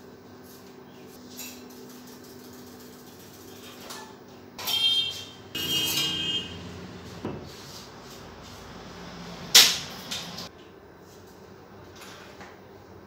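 Bicycle and other metal things being moved about on a concrete floor: a few scraping, squealing metallic creaks about five and six seconds in, then one sharp knock nearly ten seconds in.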